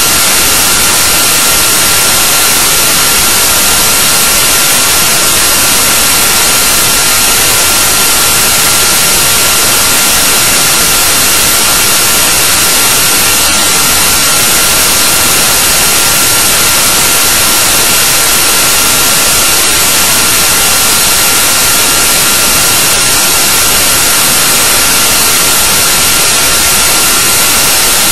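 Steady, loud hiss like static, unchanging throughout, with a faint steady high tone underneath; no footfalls, thuds or voices stand out.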